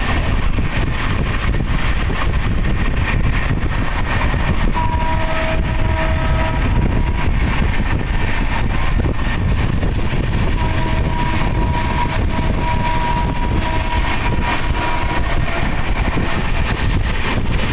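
Express train running at speed, heard from inside a passenger coach: a steady rumble and rattle of wheels on the rails. A train horn sounds twice, about five seconds in for two seconds, then from about ten and a half seconds for four to five seconds.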